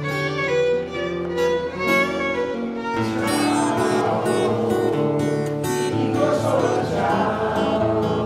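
Acoustic guitar and violin playing together, the violin holding long notes. About three seconds in the music grows fuller and a little louder.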